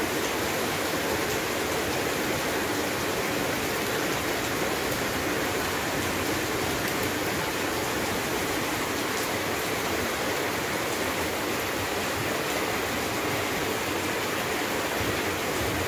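Heavy rain falling steadily, splashing on parked cars and puddled pavement and pouring from roof drain spouts: a dense, even hiss.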